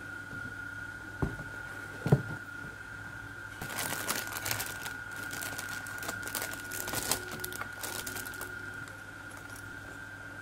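Plastic bags of model-kit parts crinkling as they are handled and lifted out of the box, with a knock about a second in and a louder knock about two seconds in. A steady high whine and a low hum run underneath.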